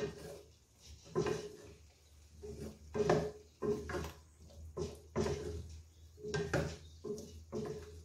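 Wooden spatula stirring and scraping potatoes, carrots and meat around a nonstick frying pan, in repeated uneven strokes of about two a second.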